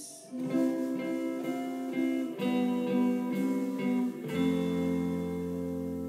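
Electric guitar strumming a run of chords. About four seconds in, a low bass note joins and a chord is held, ringing and slowly fading.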